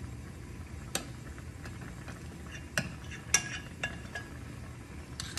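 Stainless steel spoon clinking against a glass batter bowl and an enameled Dutch oven while dumpling batter is scooped and dropped into broth: about five sharp clinks, the loudest a little past the middle, over a steady low hum.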